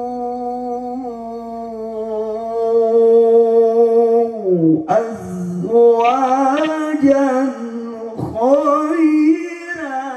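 A man's melodic Quran recitation (tilawah), amplified through a PA sound system. He holds one long note for about four and a half seconds, then, after a short break, sings a louder, higher phrase of quick ornamented turns that climbs in pitch.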